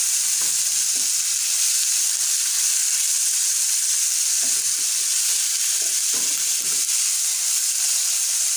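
Chopped vegetables sizzling steadily as they fry in hot ghee in a pan, softening, with a spatula stirring and scraping through them now and then.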